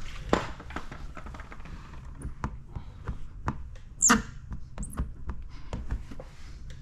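Plastic squeegee working wet paint protection film on a car bumper: scattered soft taps and clicks, with a short high squeak about four seconds in and a fainter one a second later.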